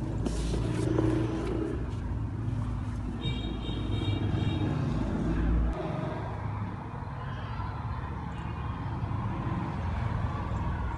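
Steady low rumble of background motor traffic, with a short high tone about three seconds in that lasts about two seconds.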